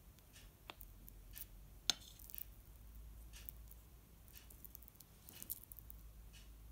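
Faint, scattered light clicks of a metal spoon against a ceramic plate as it presses into and scoops soft toasted-semolina paste (tamina), with a soft squish; the sharpest click comes about two seconds in.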